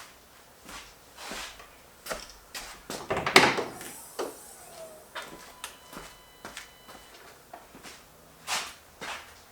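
Scattered knocks and clicks of handling around a car, with one louder clatter about three seconds in. No engine is heard running.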